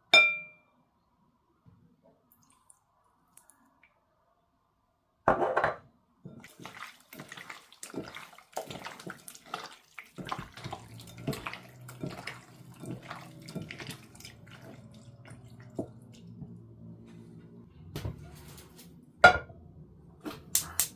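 Water from a tap splashing in a sink as something is washed under it, with many small clicks and splashes. Before that there is a single ringing clink and a short loud splash.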